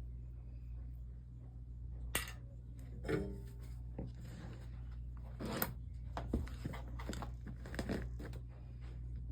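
A few light clinks and taps of stained glass pieces and tools being handled on a work surface while the chime is soldered, over a steady low hum.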